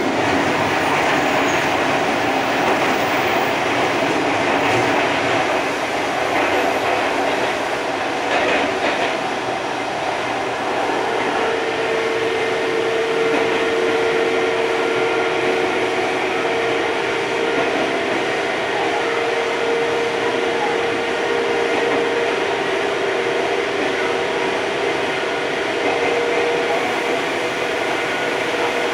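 Running noise of an Odakyu 30000 series EXE Romancecar electric train with IGBT VVVF inverter control, heard from the vestibule deck: a steady rumble of the train under way. A steady hum joins in about eleven seconds in.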